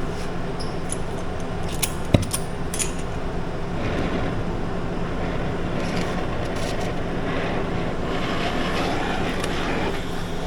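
Oxy-fuel cutting torch hissing steadily as it skims excess metal off a car rim, with a sharp click about two seconds in. The hiss grows fuller from about four seconds in.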